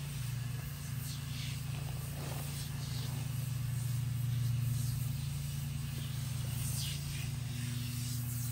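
Short hisses of an aerosol foaming cleaner being sprayed onto an engine block, several times, over a steady low mechanical hum.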